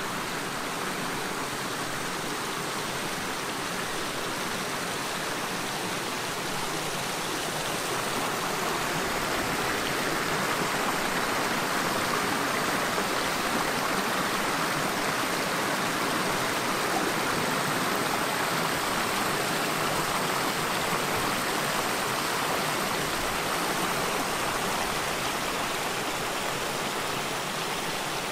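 Steady rushing of running water, like a stream or spillway, swelling louder through the middle and easing again near the end.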